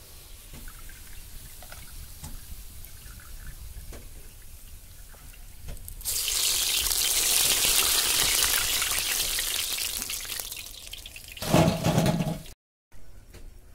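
Medu vada batter dropped into hot oil in a large kadai, setting off a sudden loud sizzling hiss about halfway through that slowly fades over a few seconds; before it the oil crackles quietly. Near the end comes a short louder sound, then an abrupt cut.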